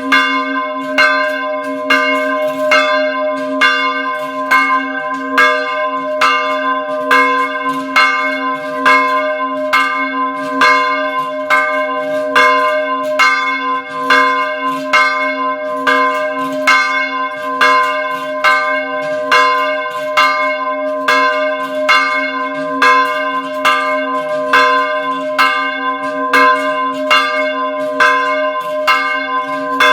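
Small church bells pealing, struck in quick, unbroken succession so that several pitches ring together over a steady low hum.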